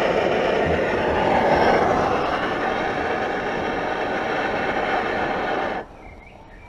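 Primus OmniLite Ti gas stove burning at full flame under a pot of water at a rolling boil, a loud, steady roar that cuts off suddenly a little before the end.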